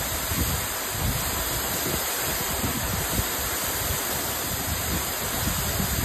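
Aber Falls waterfall pouring down the rock face into its pool: a steady, unbroken rush of falling water. Low, irregular rumbles of wind buffet the microphone underneath it.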